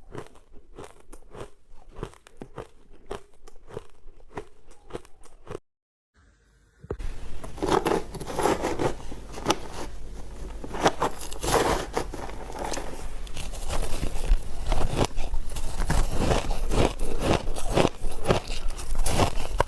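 Ice being bitten and chewed close to the microphone: rapid, crackling crunches. It cuts out briefly about six seconds in, then resumes louder and denser.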